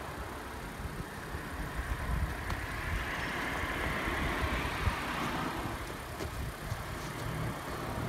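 Strong wind gusting and buffeting the microphone, a rough low rumble with a rushing hiss that swells in the middle.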